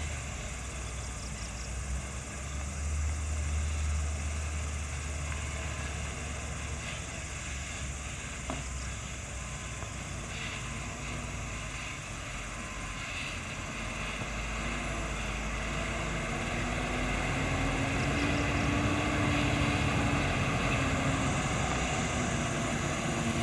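Loaded Hino 500 coal truck's diesel engine pulling uphill under load, a low rumble that grows louder as the truck comes closer, with its engine note rising about two-thirds of the way through.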